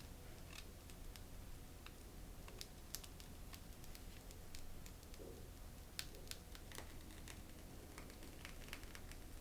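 Faint, scattered light clicks and taps of small handling noises, over a low steady hum.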